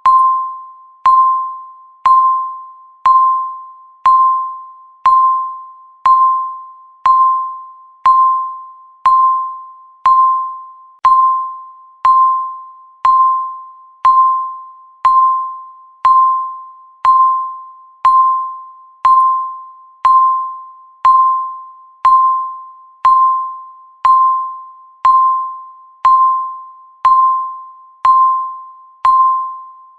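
Electronic timer beep, a single tone near 1 kHz sounded once every second, each with a sharp onset and a fading tail, marking the seconds of a countdown.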